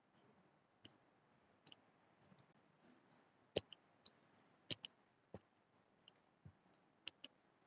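Faint scattered clicks and taps, handling noise at the microphone while the audio is being adjusted, with three or four sharper clicks in the middle and near the end.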